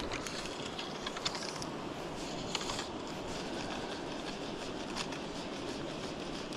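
Steady rush of river water, with short runs of clicking and rasping from the fly reel and line being handled in the first second or so and again around two and a half seconds, and a single click about five seconds in.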